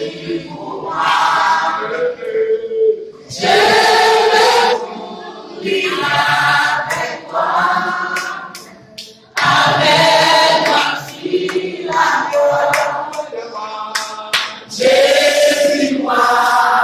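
Small mixed church choir of men and women singing a hymn unaccompanied, in short phrases with brief breaks between them.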